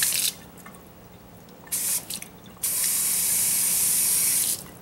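Water running from the pull-down sprayer head of a Moen kitchen faucet into a sink and over hands, rising into loud hissing surges: a short one at the start, two brief ones near the middle, and a long one of about two seconds after that. The head is being worked to switch it to spray, and the spray setting is not engaging.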